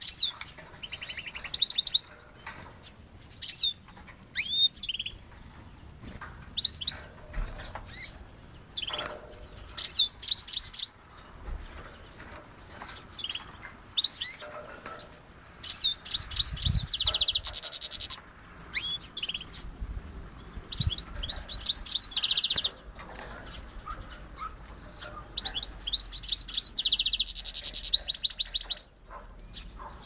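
European goldfinch × canary hybrid (a goldfinch mule) singing: a run of short twittering phrases and sweeping chirps, with two longer, louder, rapid buzzy trills, one about halfway and one near the end.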